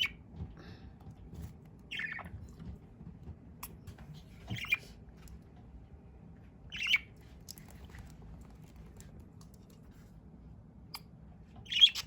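Pet budgerigar giving five short, high calls a few seconds apart, the last one the loudest.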